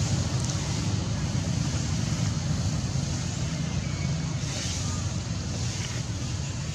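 Steady low rumble and hiss of outdoor background noise, with no distinct events.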